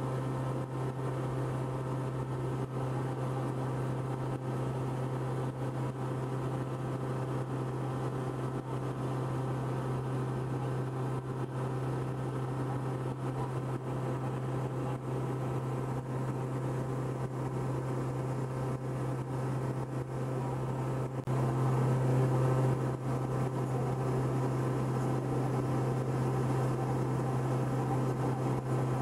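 Cabin drone of a Cessna 162 Skycatcher in cruise flight: the steady hum of its four-cylinder Continental O-200 engine and propeller, getting somewhat louder about 21 seconds in.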